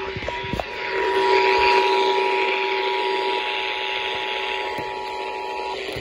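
Emergency Alert System two-tone attention signal, a steady dual tone, playing from a radio speaker over static hiss. It cuts off shortly before the end, leaving a lower steady tone and hiss.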